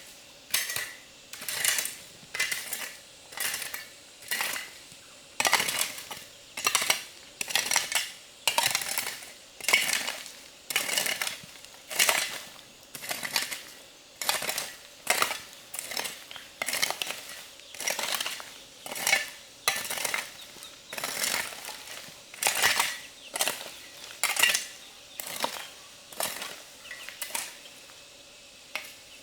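A metal utensil clinking and scraping against dishware over and over, about one and a half to two strokes a second, with a light metallic ring.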